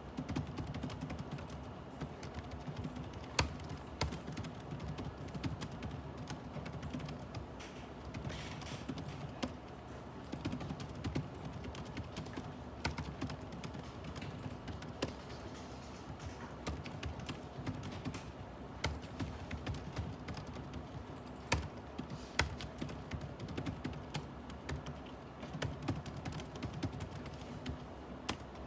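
Typing on a computer keyboard: a steady run of irregular keystrokes, with a few sharper, louder key strikes standing out, over a faint steady low hum.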